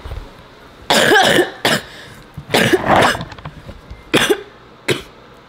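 A person coughing: several loud, harsh coughs in short fits, with a single shorter cough near the end.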